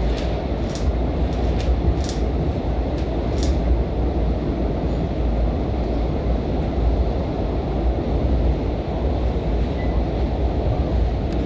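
Long Island Rail Road commuter train running at speed, heard from inside the passenger car: a steady low rumble of wheels on rail, with a few sharp ticks in the first few seconds.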